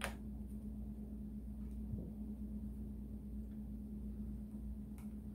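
A steady low electrical hum, with a sharp click at the start and a couple of faint ticks later, as wires are handled and fitted to their terminals.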